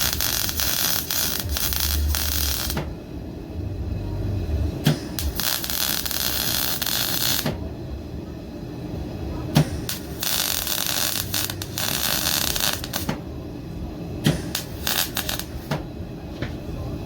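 MIG welding arc crackling and sizzling in four runs of a few seconds each, stopping and starting again between runs, over a steady low hum.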